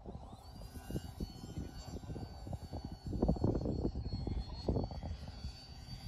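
Radio-controlled model airplane flying overhead, its motor and propeller giving a thin high whine that rises in pitch at the start and then holds steady. Low buffeting on the microphone, loudest a little past three seconds in.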